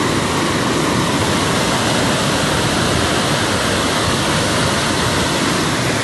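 Storm floodwater rushing in a muddy torrent, a loud, steady rush of water without a break.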